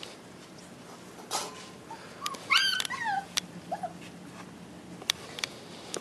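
Miniature beagle puppy giving a few high whimpering cries that slide down in pitch, about two to three seconds in, then one short cry a moment later.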